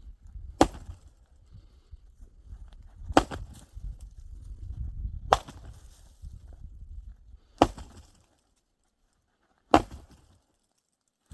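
Dry wood being chopped: five sharp, separate blows about two seconds apart.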